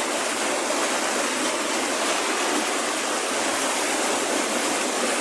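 Floodwater rushing steadily, an even unbroken roar of running water.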